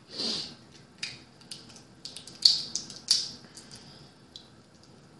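Cooked blue crab shell being cracked and picked apart by hand: a short softer noise at the start, then a run of sharp snaps and clicks of shell breaking, the loudest about two and a half seconds in.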